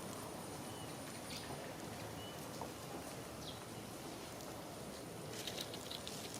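Steady outdoor background noise with a few faint, short chirps, and a brief patch of crackling, like rustling leaves or twigs, about five seconds in.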